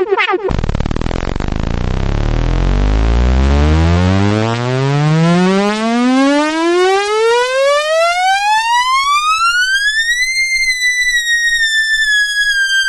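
Synthesized electronic tone sweeping steadily upward in pitch, from a deep buzz to a high whine over about ten seconds, then easing slightly down and holding. A brief falling swoop sounds at the very start.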